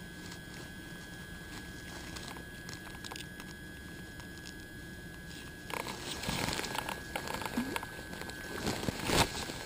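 Handling noise while a small yellow perch is unhooked: faint clicks over a quiet steady background, then about six seconds in louder rustling and scuffing begins, with a sharp thump near the end.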